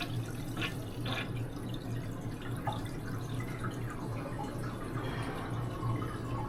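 Water running steadily through a toilet as it is flushed with the handle held down to let the full volume of water through.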